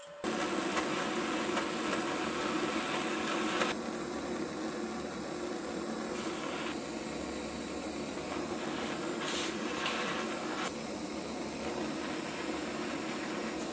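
Gas blowtorch flame hissing steadily while it heats a brass fitting for soldering, its tone shifting a few times as the flame moves.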